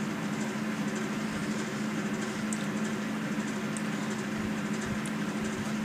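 A steady low hum with a constant pitch, with a few faint ticks over it.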